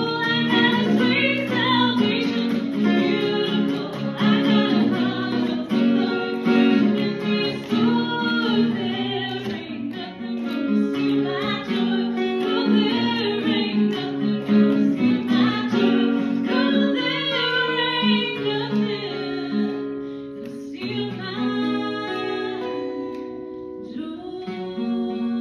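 A woman singing a Christian worship song live, accompanied by a strummed acoustic guitar.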